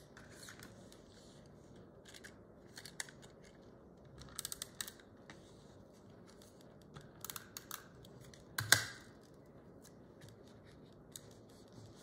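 Small scissors snipping sticker paper in short runs of quick snips, with one louder handling sound nearly three-quarters of the way in.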